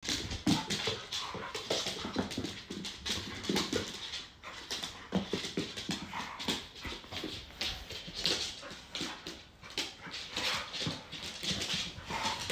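Two dogs, an American Bully puppy and an adult American Staffordshire Terrier, play-fighting: short dog noises over a rapid, irregular clicking and scrabbling of claws on a laminate floor.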